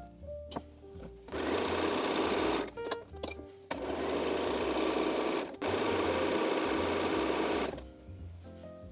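Bernina B 480 computerized sewing machine stitching a hem in linen, running in three spurts of about one and a half to two seconds each with brief stops between.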